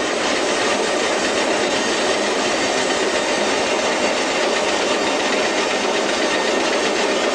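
Home-built bandsaw running steadily, its blade sawing lengthwise through a log to cut boards.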